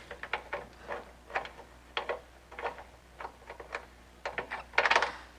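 Ratchet clicking in short runs as the oil drain plug, fitted with a new crush washer, is screwed back in, with a quick burst of clicks near the end.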